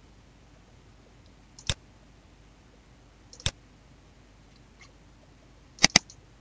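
Computer mouse button clicks: a single click, another about two seconds later, then a quick double-click near the end as a folder is opened.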